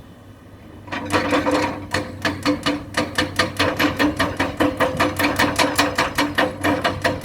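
Rapid, even metallic knocking, about five blows a second, starting about a second in over a low, steady engine hum.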